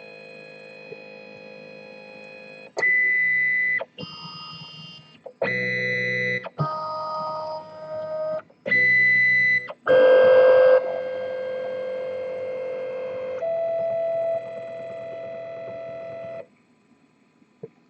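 Weedo Tina 2 3D printer's stepper motors moving the axes in a calibration routine: a string of steady electronic whining tones, each lasting a second or two, that start and stop abruptly and jump to a new pitch with each move. The motors fall silent near the end.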